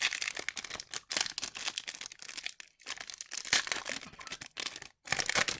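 Hockey card pack wrappers being handled and torn open, with quick, irregular crinkling and crackling rustles.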